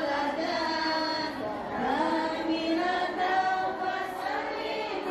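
A group of women singing together, holding long notes.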